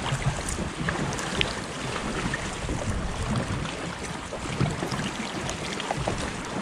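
Sea water lapping and splashing against a kayak, with small scattered splashes and wind rumbling on the microphone.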